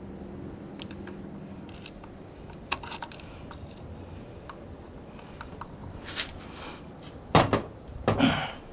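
Light metallic clicks and taps of small screws and a screwdriver being handled, then two much louder knocks near the end.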